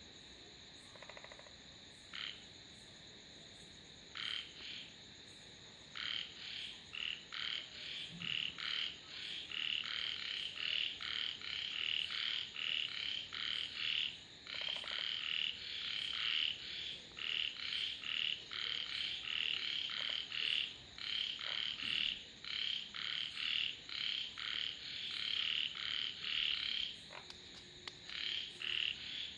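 Frogs croaking: a few scattered short calls at first, then from about six seconds in a fast, continuous run of short, high-pitched croaks, about two to three a second. A steady high-pitched whine sits underneath throughout.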